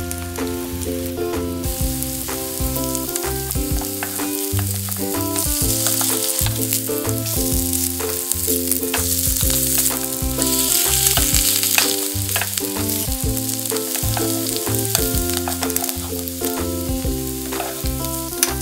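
Egg-and-starch-bound napa cabbage and crab stick pancakes sizzling in cooking oil in a four-cup pancake pan, the hiss swelling twice in the middle. There are light scrapes as a wooden spatula lifts and turns them.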